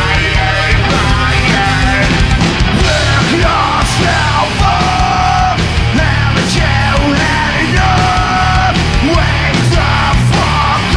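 Loud live rock band playing, with a male singer singing into a hand-held microphone over drums and a heavy low end.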